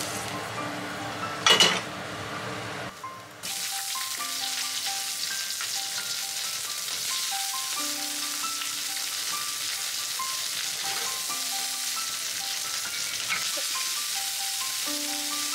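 Halved cherry tomatoes sizzling in hot oil in a frying pan, stir-fried with a wooden spatula, a steady hiss. One loud clatter about a second and a half in. Background music with short plucked notes plays over it.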